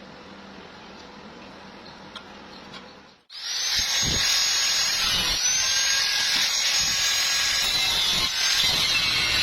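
A faint steady hiss with a low hum, then, about three seconds in, after an abrupt cut, a power tool running steadily on metal: a loud grinding noise under a high whine that dips slightly now and then under load.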